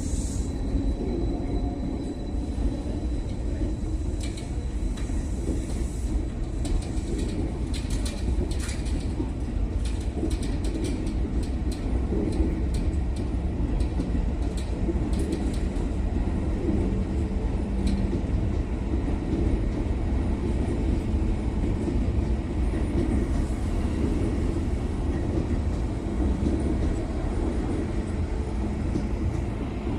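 A train running past with a steady low rumble, and a quick run of wheel clicks over the rails in the first half.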